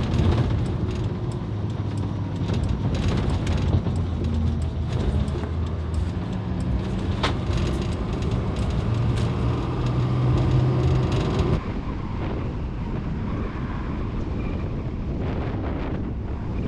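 Chevrolet Kodiak C4500 ambulance truck driving: engine hum and road noise inside the cab, the engine note shifting in pitch. About twelve seconds in it cuts abruptly to a steadier rush of wind and road noise heard from outside the truck.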